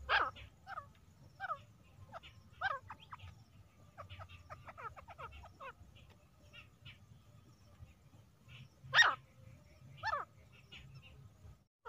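Female grey francolin calling: loud, sharp, falling notes at irregular intervals, with fainter notes between them and a quick run of short notes around the middle.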